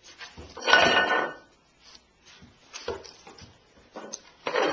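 Upturned aluminium pots clattering and scraping on a hard surface as a puppy noses and pushes them. There is a longer rattling scrape about a second in, then a few sharp knocks.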